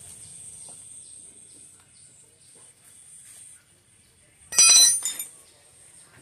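A steel tyre lever clinks and clatters against a motorcycle's alloy wheel rim with a brief ringing metallic sound about four and a half seconds in, while the new tyre's bead is levered over the rim. Quieter handling noises and a steady high hiss come before it.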